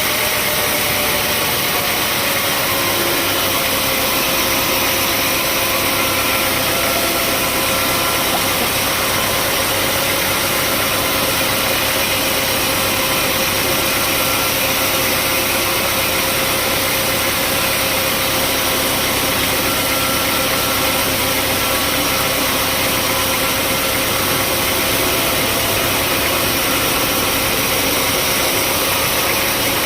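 Sawmill machinery running steadily: a loud, even engine and saw noise with a whine that sinks a little in pitch over the first few seconds, then holds.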